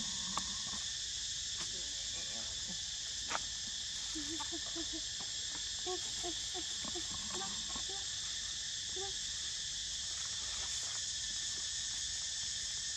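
A steady, high-pitched chorus of insects droning without a break, with a few short soft chirps between about four and nine seconds in and a couple of sharp clicks.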